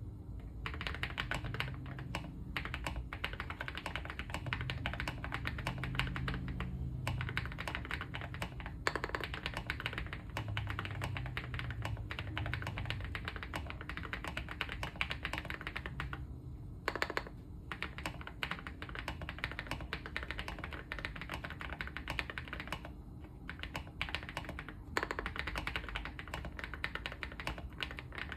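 Typing on a Leobog Hi75c mechanical keyboard (Coconut Latte version): a fast, continuous run of key clacks, broken by a few short pauses.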